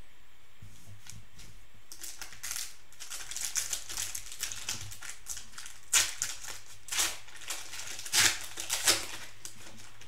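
Plastic cello-pack wrapper of a trading-card pack crinkling and rustling as it is handled and opened. It starts about two seconds in, with several louder sharp crackles in the second half.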